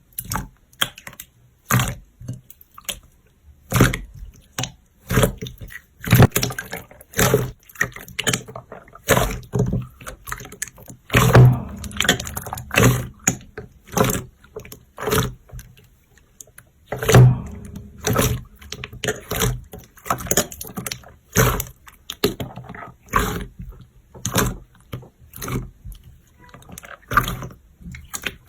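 Slime being pressed and squeezed by hand, giving repeated sharp pops and clicks about one to two a second, with a few louder clusters.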